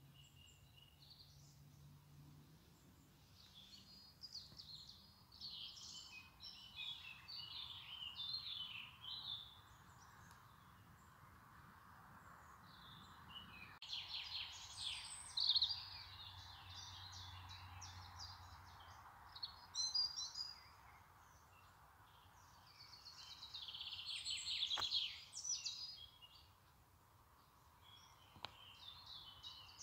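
Small songbirds singing and chirping in repeated bursts of quick, high notes, over a faint steady hiss.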